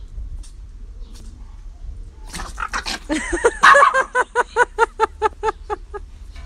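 A dog yapping in a rapid run of short, high-pitched barks, about four a second, during rough play between two dogs. The barks start a couple of seconds in and stop shortly before the end.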